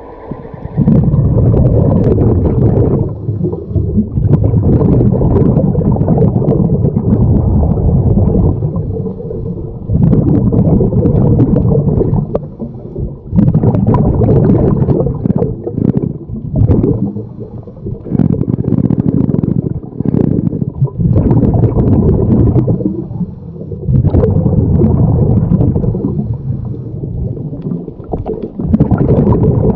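Scuba diver's regulator breathing heard underwater: exhaled bubbles rumble and gurgle in repeated stretches a few seconds long, with short quieter breaks between breaths.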